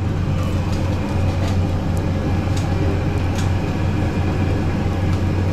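Steady low mechanical hum from the stall's kitchen machinery, with a few faint clicks of a metal spatula on the flat iron griddle where pav buns are toasting.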